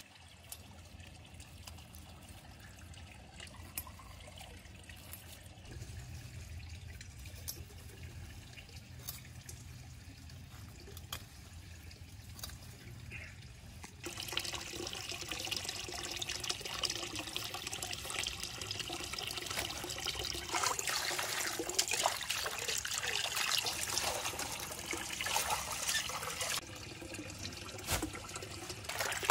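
Water splashing and trickling, loud from about halfway through, as leafy greens are washed in a metal bowl of water. Before that there are only faint quiet sounds with a few soft clicks while herbs are cut with a knife.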